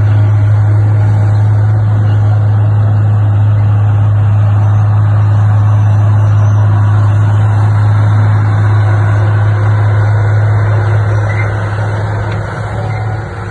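Heavy diesel engine running steadily with a constant low drone, easing off slightly near the end.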